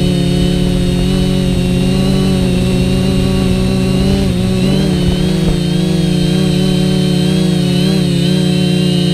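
A quadcopter's four brushless motors and propellers whine steadily, heard close from the camera on the drone, as a chord of several tones. About four seconds in, and again near the end, the tones dip and waver together as the throttle shifts.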